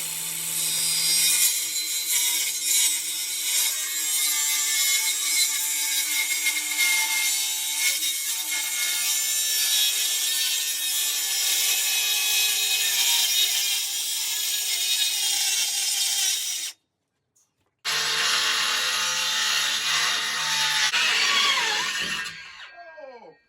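Electric power saw cutting plywood, its motor running steadily under load. The sound cuts out for about a second about two-thirds of the way through, then resumes, and the motor's pitch falls as it winds down near the end.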